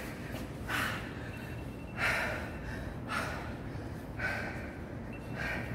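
A man breathing hard, out of breath from a timed set of sit-ups, with a heavy breath about once a second.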